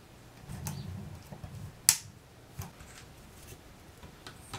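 Handling noise from fitting a white photo-studio umbrella into its light-stand holder: a low rustling rumble, then a sharp click about two seconds in and a few lighter clicks of plastic and metal parts.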